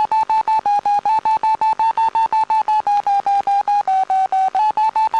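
Pitlab FPV system's audio variometer beeping rapidly, about seven short electronic beeps a second, their pitch rising and dipping slightly as the climb rate changes. The fast beeping signals the aircraft climbing in a thermal, at roughly 1.5 to 2 m/s.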